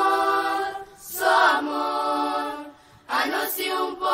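Voices singing a cappella, choir-like, in three held phrases with short breaks between them, about a second and three seconds in, and no instruments or beat.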